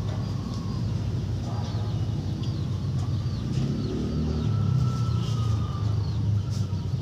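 Steady low engine rumble, with small birds chirping and a chicken calling, one drawn-out call in the middle.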